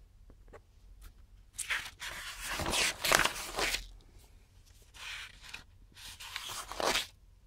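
Paper pages of a spiral-bound manual being turned and handled: a long stretch of rustling about two seconds in, then two shorter rustles near the end.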